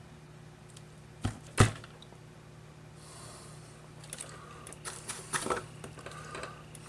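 Small tools being handled on an electronics workbench: two sharp clicks about a second in, then light clicking and rustling over a low steady hum.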